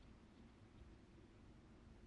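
Near silence: only a faint, steady low background rumble.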